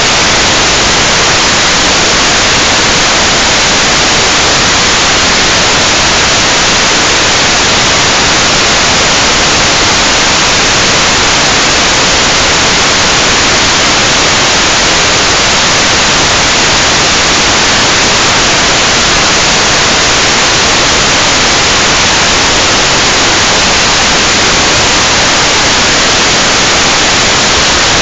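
Loud, steady static hiss from an analog FPV video receiver picking up no signal, because the video link from the crashed quadcopter is lost.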